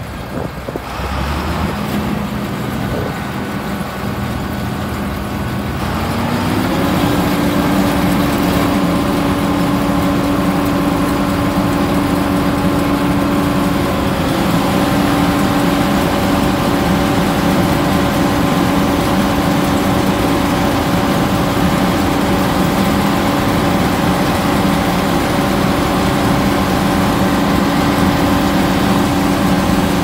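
John Deere 9600 combine's six-cylinder turbo diesel running at a low idle, then revving up about six seconds in and holding a steady higher speed, louder and with a dense mechanical rush over the engine note.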